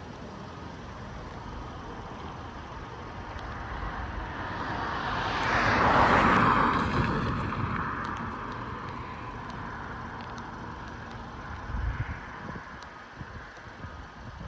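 A vehicle passing by: a rush of noise that builds, peaks about six seconds in and fades, over low wind rumble on the microphone.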